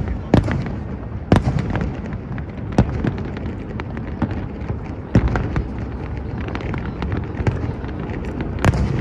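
Fireworks display: shells bursting with sharp bangs over a continuous rumble of crackle and distant explosions, with a heavy boom about five seconds in and a quick run of bangs near the end.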